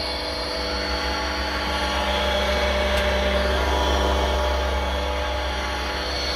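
Mikron A 60/0 hob sharpening machine running under power: a steady electric motor hum with a strong low drone and several steady tones above it.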